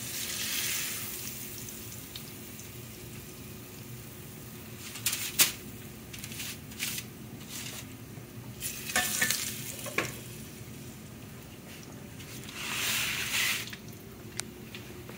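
Hot oil sizzling steadily in a frying pan, with a few sharp clinks and taps of utensils against the pans. The hiss swells briefly about thirteen seconds in.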